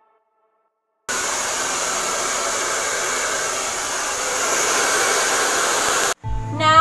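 Hand-held hair dryer blowing a steady rush of air while damp hair is blow-dried. It starts abruptly about a second in and cuts off suddenly near the end.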